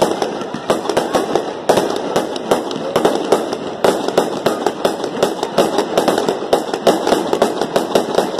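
Aerial fireworks going off in a dense barrage: a quick, unbroken run of sharp bangs and pops from shells bursting, several a second.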